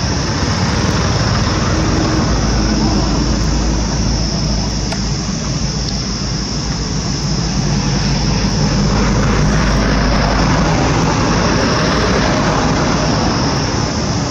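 A motor vehicle's engine running steadily over a loud hiss, with a deeper low drone from about two seconds in until about ten seconds in.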